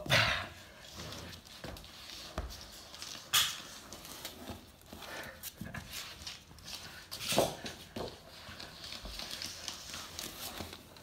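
An American Staffordshire Terrier puppy's claws clicking and scrabbling on a laminate floor as it tugs on a rope toy. A few louder scuffs and knocks stand out, one at the start, one about three seconds in and one about seven seconds in.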